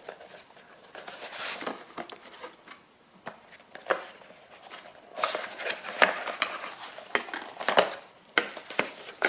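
A cardboard product box being opened by hand: irregular taps, clicks and scraping of the cardboard flaps and packaging being handled, busiest in the second half.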